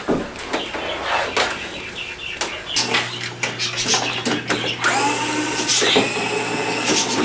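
Cordless power screwdrivers backing screws out of a TV's plastic back cover. The motor whirs in short runs in the second half, each rising in pitch as it spins up, among clicks and knocks of the tools on the panel.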